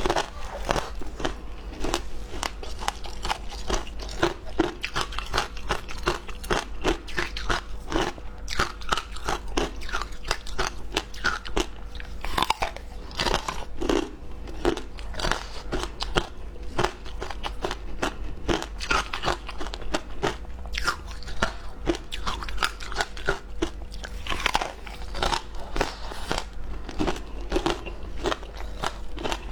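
Flavoured ice being bitten and chewed: a continuous, rapid run of sharp cracks and crunches as the frozen ice breaks between the teeth.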